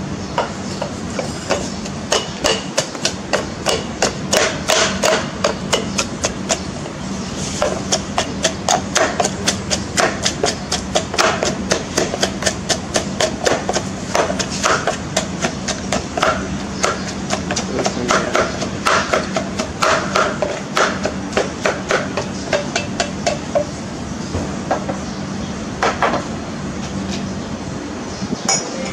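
Wooden muddler pounding cucumber in a stainless steel cocktail shaker tin: a long run of sharp knocks, several a second, with a couple of short breaks, thinning to a few single knocks near the end.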